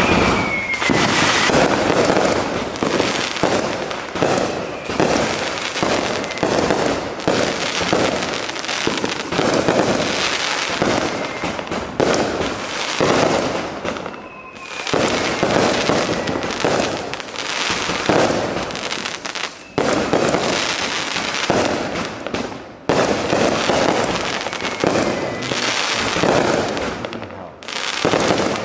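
Consumer aerial fireworks going off in a rapid, almost continuous barrage of launches, bangs and crackling bursts, with a few short lulls. A few faint falling whistles sound through it.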